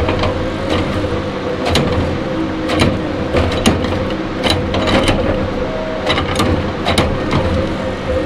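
Tigercat 234B knuckleboom log loader's diesel engine running steadily under hydraulic load as its grapple lifts logs off the deck, with repeated sharp knocks of logs clattering against each other.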